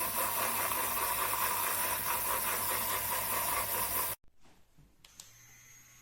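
Handheld electric milk frother whirring as its whisk spins in milk, a steady hissing buzz that cuts off suddenly about four seconds in when it is switched off.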